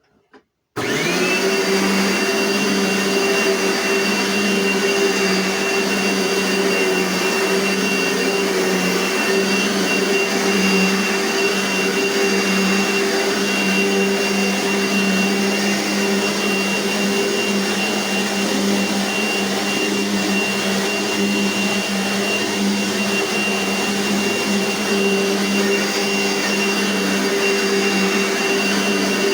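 1990s Dirt Devil Power Light upright vacuum cleaner with its 11-amp motor, switched on about a second in. The motor spins up fast, its whine rising, then runs steady and loud with a high whistle over the rush of air.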